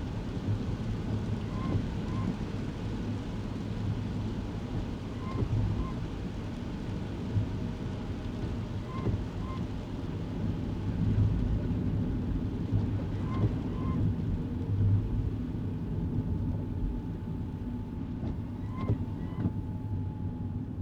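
Kei car cabin: steady low engine and tyre rumble. Over it comes a pair of short squeaks every three to four seconds, the pattern of windscreen wipers on an intermittent setting in the rain.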